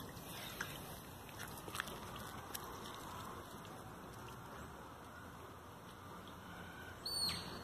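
Faint outdoor background with a few light ticks in the first few seconds, and a short high chirp near the end.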